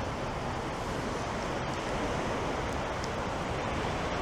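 Steady rushing wash of sea surf breaking on the shore, with wind across the microphone.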